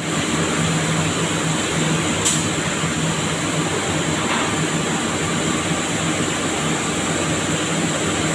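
Hollow plastic board production machine running steadily: an even mechanical noise with a low hum and a high whine, and one sharp click about two seconds in.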